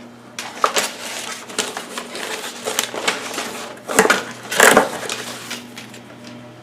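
Packaging being handled while unboxing: irregular crinkling and rustling, with two louder crinkles about four and five seconds in.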